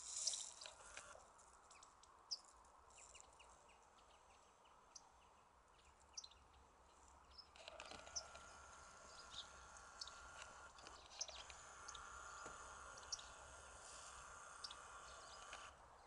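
Faint, scattered short chirps from a winter flock of small songbirds, becoming denser and more continuous about halfway through.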